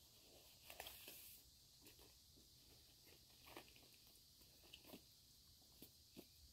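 Faint rustling of a haversack being rummaged through, with a few light clicks and knocks as gear, including a metal cup or bottle, is handled and drawn out. The knocks are loudest about a second in and come singly after that.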